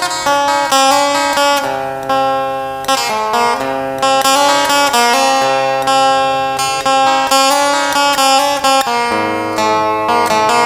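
Background music: a plucked-string instrumental, guitar-like, with repeated plucked notes and a steady melody.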